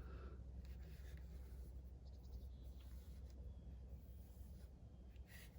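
Faint, intermittent rubbing of an applicator cloth wiped across a plastic composite headlight lens, over a low steady hum.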